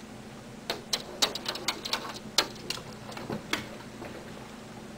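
A quick, irregular run of sharp clicks and taps, about a dozen over some three seconds, over a faint steady hum.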